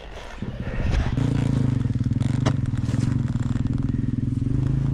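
Enduro dirt bike engine running steadily at an even pitch. It comes in about half a second in and settles by about a second, with one sharp knock about two and a half seconds in.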